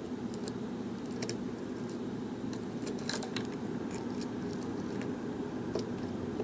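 Lock pick and tension wrench working in a pin-tumbler challenge lock: small, irregular metallic clicks as pins are set, over a steady low hum.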